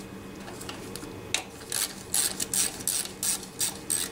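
Ratchet wrench clicking in quick, even strokes, about four a second, as bolts on the engine's carburetor bracket are loosened. It starts after about a second and a half of near pause.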